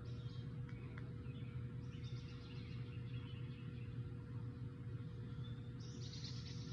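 Steady low outdoor background hum, with brief high bird chirping about two seconds in and again near the end.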